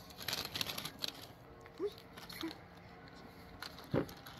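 Soft rustling and scraping of hands and tools in garden soil and plants, with two brief voice sounds and a sharp knock about four seconds in.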